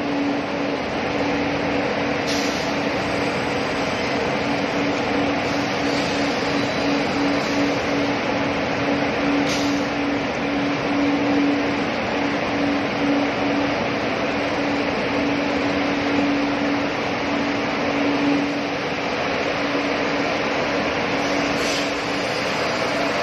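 Dog food production machinery running with a steady mechanical hum and a constant low pulsing tone, with a few faint clicks.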